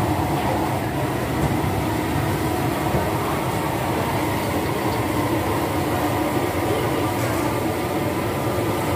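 Gas burner under a large pan of green curry, running with a steady low rushing noise.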